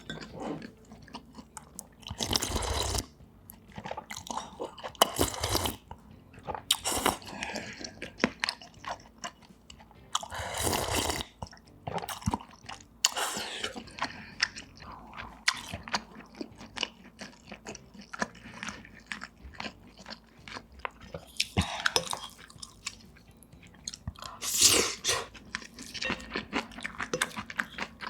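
Close-miked eating: chewing and biting with wet clicks and crunches, and a few louder bursts of slurping or chewing.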